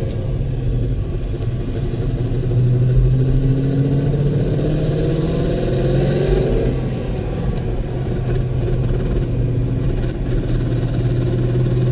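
Inside the cabin of a moving 2014 Ford Mustang, the Getrag MT82 six-speed manual transmission gives a massive whine over the steady hum of the drivetrain. The pitch rises and then falls about halfway through. The constant whine on both acceleration and deceleration is the sign of a failed MT82.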